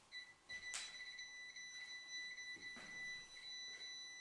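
Handheld electronic detector beeping: a high-pitched electronic tone stuttering in quick beeps and at times holding almost unbroken, the device triggered. A couple of faint rustles sound over it.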